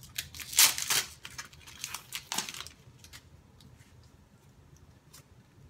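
Foil wrapper of a Pokémon card booster pack torn open and crinkled by hand, with a few sharp crackling rips in the first two and a half seconds and then faint rustling as the cards are handled.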